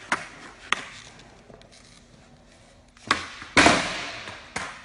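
Skateboard tricks on a hard floor: a series of sharp wooden clacks as the board's tail is popped and the board slaps down, with the loudest, longer clatter about three and a half seconds in as the board lands or crashes and dies away.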